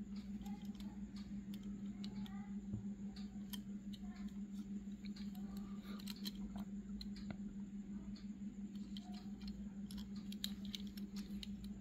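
Small scattered clicks and taps of fingers handling and turning a die-cast toy car, over a steady low hum.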